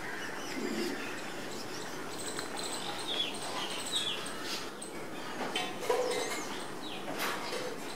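Outdoor village ambience: a steady hiss with a few small birds chirping now and then, short quick notes.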